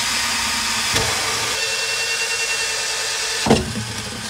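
Corded electric drill running a 38 mm hole saw through the wall of a blue plastic drum, a steady grinding noise. There is a light knock about a second in and a sharper, louder knock about three and a half seconds in.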